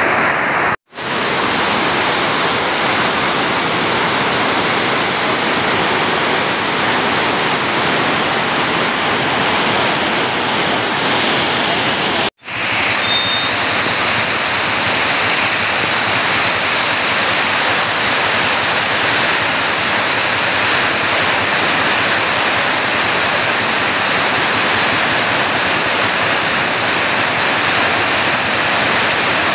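Muddy floodwater rushing across a road and spilling over its edge in a loud, steady rush. The sound cuts out briefly twice: about a second in, and again near the middle.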